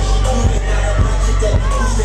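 Loud hip hop music with a heavy bass line and a steady kick-drum beat, a little under two beats a second.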